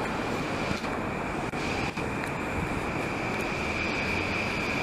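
Commuter electric train standing at a platform with its doors open: the steady hum of its onboard equipment, with a steady high-pitched tone running through it.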